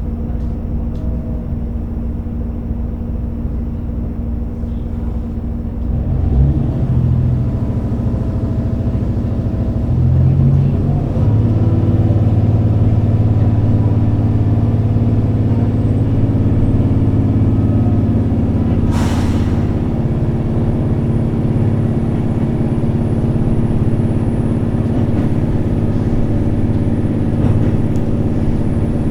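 JR Hokkaido H100 diesel-electric railcar heard from inside, its engine running steadily at first, then powering up about six seconds in as the train pulls away and accelerates. A faint rising high whine comes in later, and there is a brief hiss about two-thirds of the way through.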